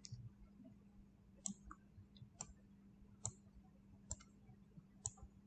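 Faint computer mouse clicks, about six of them roughly a second apart, over a low steady hum.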